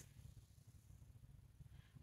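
Near silence: room tone with a faint low rumble.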